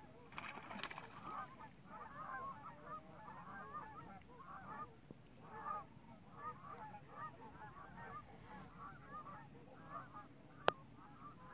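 A flock of sandhill cranes calling, many overlapping calls without a break. A single sharp click near the end.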